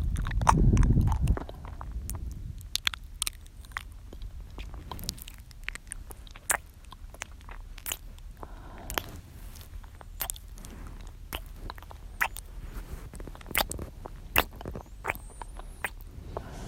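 Close-miked ASMR mouth sounds: many short, wet tongue and lip clicks and smacks at irregular intervals. It opens with a low breath rush into the microphone lasting about a second and a half.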